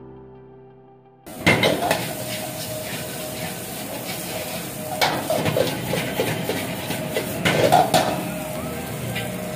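Steel ladle scraping and clanking against a black wok as fried rice is stirred and tossed, over a steady hiss, with several louder clanks standing out. Soft background music plays for about the first second, then cuts suddenly to the live sound.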